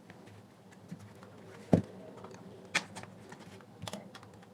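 Scattered sharp clicks and knocks of hard plastic as a JBL Tune Bluetooth speaker's casing is pried open and handled, about four of them, with a louder knock near the middle.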